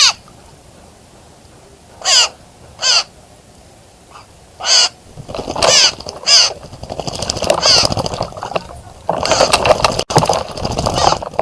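Harsh, caw-like bird calls: a few loud single calls spaced a second or so apart, then a busier run of overlapping calls in the second half.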